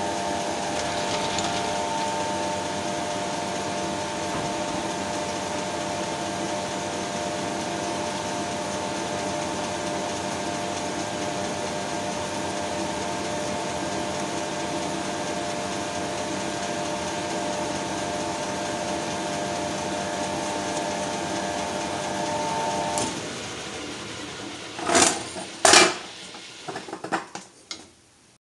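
Colchester Triumph 2000 lathe running steadily with a whine of several tones, then switched off about 23 seconds in and dying away. Two loud knocks follow a couple of seconds later, then a few lighter clicks.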